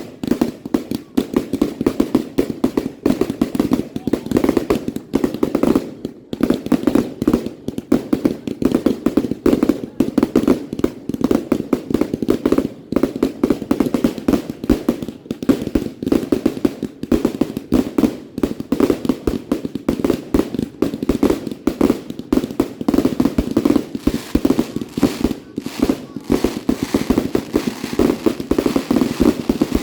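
Fireworks going off in a dense, continuous barrage: many sharp bangs and crackles a second, with no let-up.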